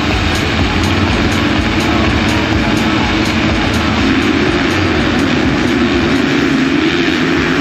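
A full start grid of motocross bikes revving together at the gate, a dense wall of many engines at high revs, the field pulling away off the line about halfway through.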